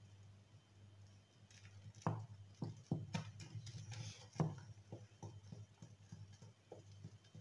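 Wire balloon whisk beating cake batter by hand in a glass bowl, the wires knocking and clicking against the glass in an irregular rhythm of two or three strokes a second, starting about two seconds in.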